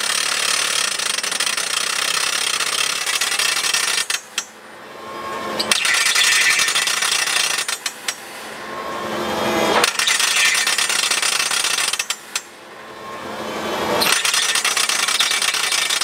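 Excavator-mounted rock drill rig hammering into rock. The hammering cuts off abruptly three times, about every four seconds, and each time builds back up over a second or two before running loud again.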